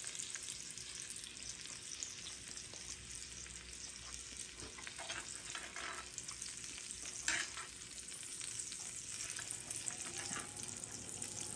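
Faint, steady sizzling and crackling of meat and fat in a hot cast-iron dish, with a few soft clicks, the loudest about seven seconds in.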